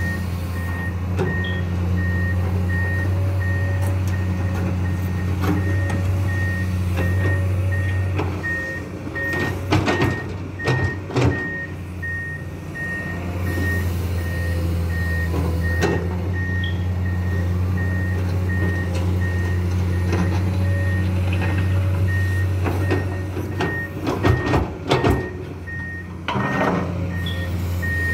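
Komatsu PC210 excavator's diesel engine running steadily under digging load, with its warning alarm beeping over and over. Twice, around the middle and near the end, the bucket scrapes and knocks against the sand and the engine note changes with the load.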